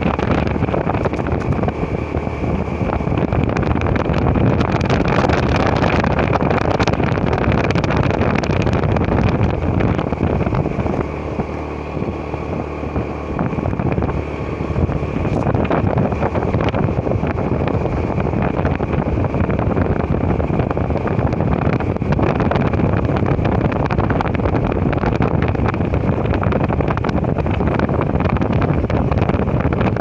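Motorcycle running at road speed, its engine mixed with heavy wind rush on the microphone; the noise eases briefly about halfway through.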